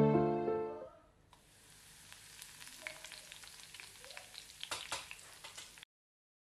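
Background music fades out in the first second. Then hot oil in an iron kadai sizzles with fine crackles as chopped green leaves fry with mustard seeds and dried red chillies. The sizzle starts suddenly and cuts off abruptly near the end.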